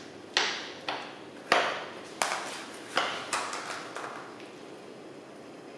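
Metal spoon scraping and knocking against a disposable aluminium foil pan while scooping baked apple cobbler: a series of sharp scrapes and clinks, about eight in the first four seconds, dying away after that.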